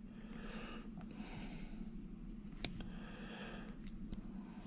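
Faint handling of small lock pins and tools while a lock cylinder is being repinned, with one sharp tick about two and a half seconds in and a few softer ones, over soft breathing.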